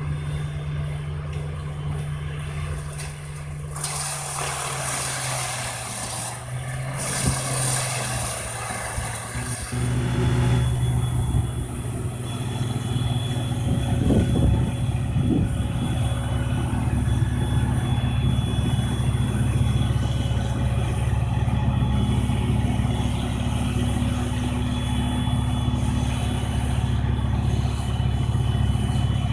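A large wood chipper's engine running steadily. A rough, hissing noise, typical of material going through, runs over it from about four to ten seconds in. After that the engine is louder and holds a steady drone.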